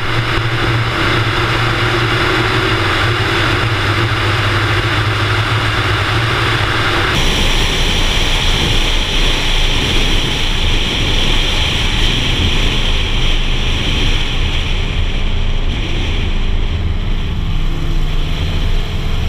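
Wind and road noise on a camera mounted on a car moving at highway speed, over a steady low engine drone. The sound changes abruptly about seven seconds in, the drone weakening and a higher hiss taking over.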